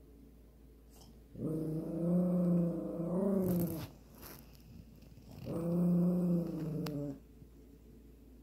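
A pug growling twice, each a low, sustained growl lasting about two seconds, with a pause between.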